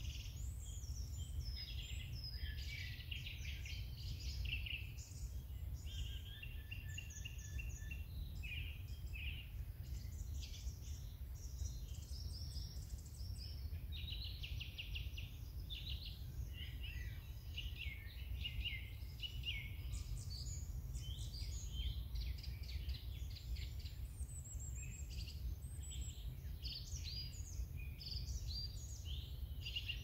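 Several songbirds singing and calling together, a dense chorus of chirps, trills and whistles, over a low steady rumble.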